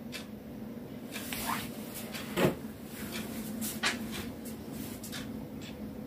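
A few light, irregular knocks and taps over a steady low hum. The loudest knock comes about two and a half seconds in.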